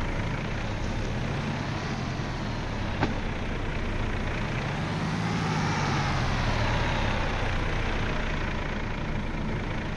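Heavy truck's diesel engine running, its pitch rising and then easing back down about midway, with a single click a few seconds in.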